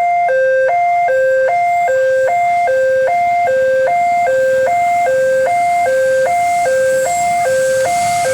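Electronic railway level-crossing warning alarm sounding, a steady two-note alternation between a lower and a higher tone, about one and a half pairs a second. Near the end a rumble rises beneath it as a train approaches.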